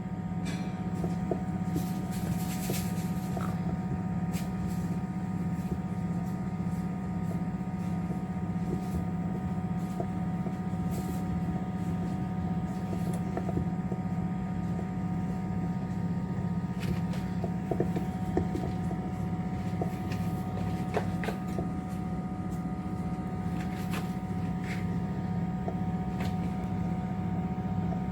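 Steady low machine hum with a few faint clicks and taps.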